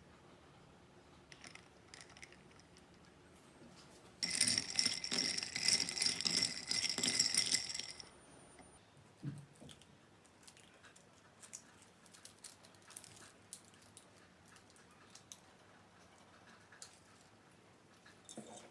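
A jingling rattle, shaken for about four seconds starting about four seconds in, with faint scattered clicks and taps after it.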